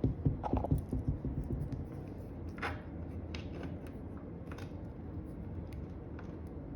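Light clicks and handling noises while screws are set into a cabinet's back panel, most of them in the first second or two, then a few sparse ticks over a low steady hum.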